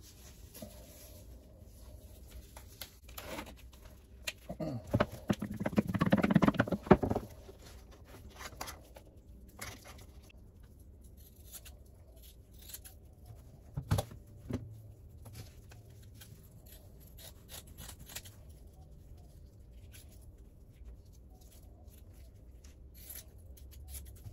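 Fiberglass mat being torn apart by hand: a loud ragged tearing lasting about two seconds, some five seconds in. Quieter rustling of the mat follows, with one sharp tick about halfway through.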